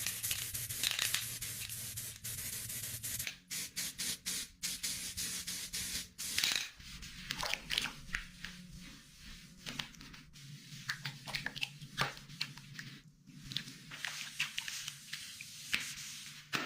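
Irregular short scraping, rubbing and hissing noises of hands-on work, a quick burst after another with no steady rhythm.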